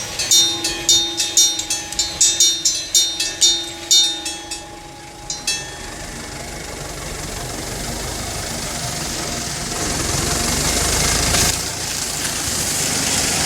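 Level-crossing electric warning bell ringing in rapid, evenly spaced strikes, about three a second, which stop suddenly about five and a half seconds in. A vehicle's noise then grows steadily louder.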